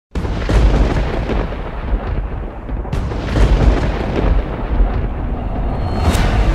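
Loud, deep rumbling with several sudden booms, one starting sharply about three seconds in.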